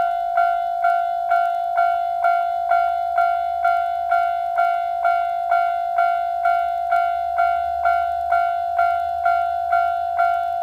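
Japanese railway level crossing warning bell ringing steadily at about two strikes a second, each strike a clear ringing tone: the crossing signal that a train is approaching. A faint low rumble swells and fades underneath in the middle.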